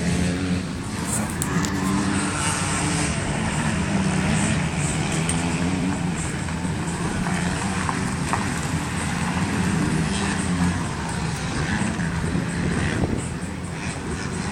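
Motor vehicle engines running steadily, with a low hum that shifts slightly in pitch.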